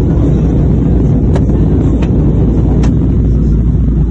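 Loud, steady low rumble of an Airbus A321 heard from inside its passenger cabin, with a few faint clicks over it.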